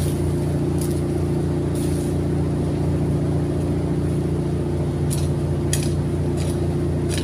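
A steady low mechanical hum, like a running motor, with several short scraping strikes of a hoe blade cutting into soil and grass roots, spaced about a second apart with a pause midway.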